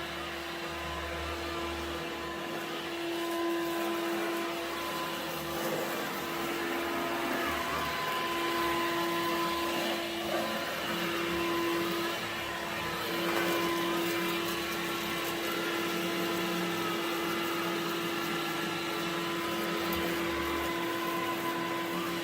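Bosch Readyy'y Serie 2 20V cordless stick vacuum cleaner running steadily with an even motor hum. The hum drops out briefly twice.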